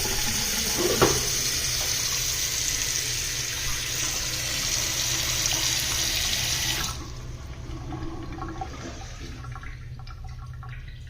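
Water running hard from a faucet, a steady hiss that shuts off abruptly about seven seconds in, leaving a quieter trickle of water draining down. A short knock sounds about a second in.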